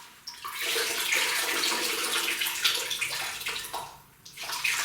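Water running and splashing for about three seconds, dropping away near four seconds and briefly returning at the end.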